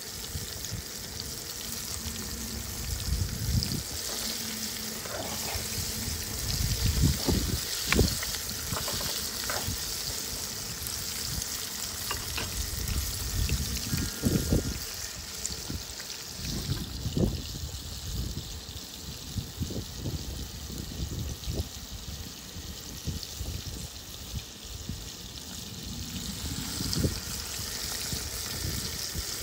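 Floured bass nuggets deep-frying in hot oil: a steady sizzle of bubbling oil. Gusts of wind buffet the microphone with low rumbles, loudest a few seconds in and again around the middle.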